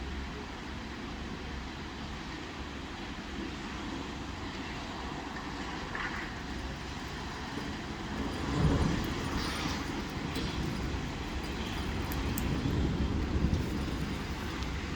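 Steady rain and traffic on a wet city street, with a vehicle passing louder a little past halfway.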